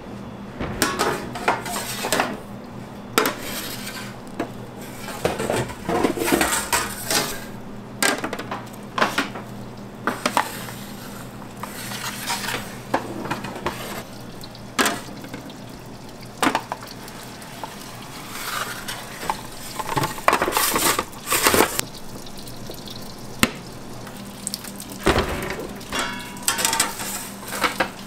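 Metal pizza peel and steel square pizza pans clanking and scraping against the oven deck as pans are loaded into a deck oven: many sharp, irregular metal knocks over a steady low hum.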